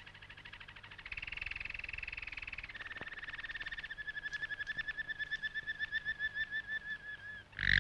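Caged songbird singing long trills of very rapid repeated notes. Each trill holds one pitch, and the song shifts to a new pitch about a second in, near three seconds and about four seconds in.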